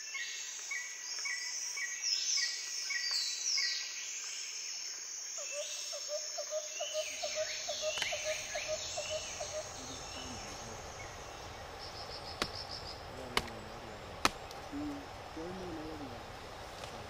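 Tropical forest chorus of many birds calling together, with repeated short notes and falling whistles, over a steady high insect hiss. In the second half, three sharp isolated cracks stand out as the loudest sounds.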